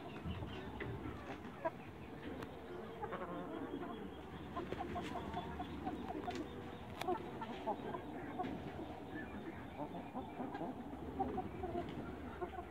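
A flock of young Light Brahma chickens calling, with many short notes overlapping throughout.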